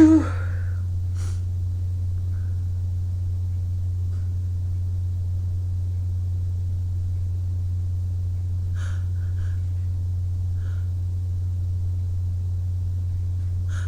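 The tail of a sneeze right at the start, then faint breathing and sniffing a few times after the sneeze, over a steady low hum.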